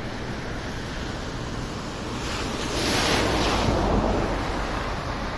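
Wind rumbling on a phone's microphone, with a rushing hiss that swells and fades about three seconds in.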